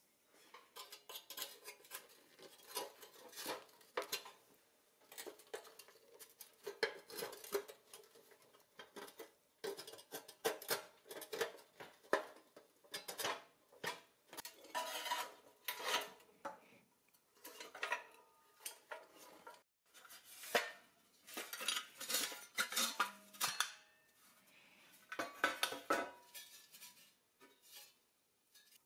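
Rusty pressed-steel parts of a vintage Tonka toy crane being handled and worked apart with pliers: an irregular run of metal clinks, taps and scrapes, some with a short ringing tone from the sheet steel.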